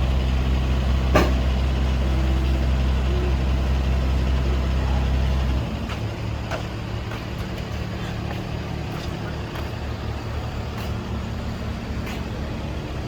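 Takeuchi TB250 excavator's diesel engine running steadily. About halfway through the engine note drops and becomes quieter and rougher. There is a sharp click about a second in and a few fainter clicks later.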